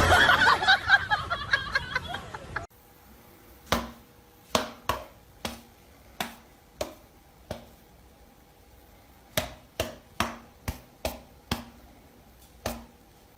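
A loud jumbled noisy sound for the first couple of seconds, which cuts off suddenly, followed by a run of about fifteen sharp, irregular taps or knocks.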